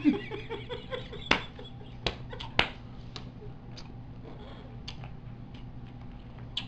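A short run of laughter in the first second, then scattered sharp clicks and smacks of gum being chewed and snapped in a full mouth, three loud ones within the first three seconds and fainter ones after.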